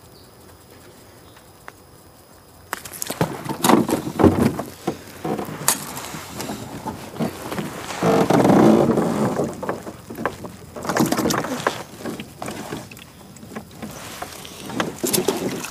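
Irregular knocks, clatters and scrapes against a small aluminium boat's hull and gear as a caught trout is handled and unhooked in the bottom of the boat. They start a few seconds in, with a longer rough rustling noise of about a second near the middle.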